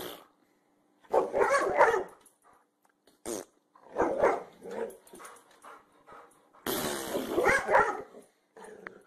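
Boxer dog barking and growling in several bursts: about a second in, around four seconds in, and a harsher one near seven seconds.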